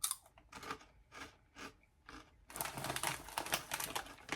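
Crunchy corn snacks (nacho cheese Loose Screws) being chewed close to the microphone, a crisp crunch about every half second. In the last two seconds this gives way to dense crinkling and crunching.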